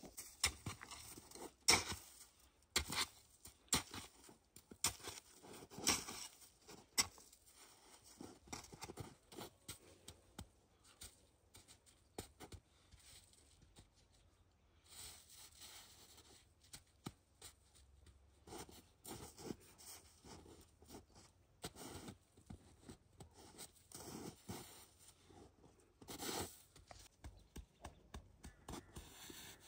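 Snow shovel digging and scraping into packed snow in irregular strokes, each a short crunch, with boots crunching in the snow. Later come softer, quicker scrapes and pats as snow is pressed and smoothed by hand on an igloo's dome.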